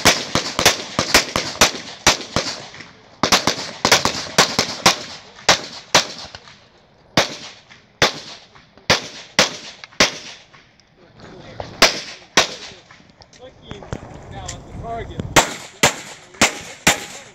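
Glock 34 Gen4 9mm pistol fired in rapid strings of two to five shots, with pauses of a second or two between strings. Near the end comes a fast run of about six shots.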